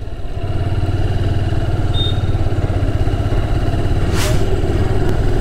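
Honda Hornet motorcycle's single-cylinder engine running steadily while riding at low speed, with a brief short hiss about four seconds in.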